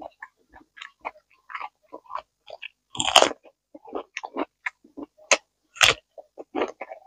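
Close-up chewing and crunching of raw vegetables and green papaya salad, a run of short wet crackles with a loud bite about three seconds in and two more sharp crunches a little after five seconds and near six seconds.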